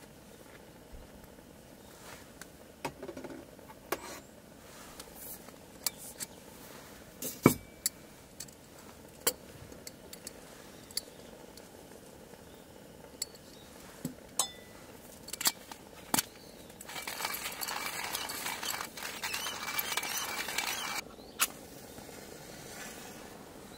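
Small hard objects being handled: scattered clicks and clinks, one louder knock, then about four seconds of rustling hiss that cuts off suddenly.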